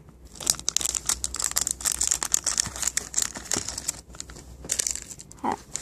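Clear plastic packaging bags crinkling and crackling as the squishy toys sealed in them are handled and set down, with irregular small clicks.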